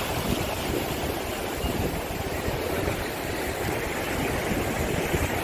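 Ocean surf washing in over shallow sand, a steady rushing of breaking waves and foam.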